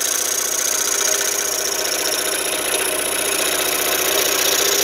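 Scroll saw running with a strip of sandpaper mounted in place of the blade. Its fast up-and-down stroke makes a steady, rapid chatter while a small wooden piece is pressed against the sandpaper to sand its edge.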